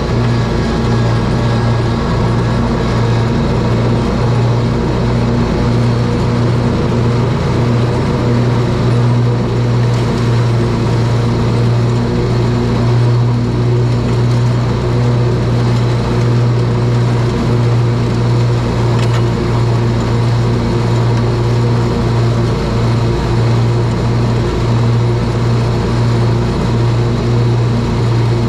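Scag Tiger Cat zero-turn riding mower running steadily at mowing speed, a constant engine drone as it cuts and mulches leaves.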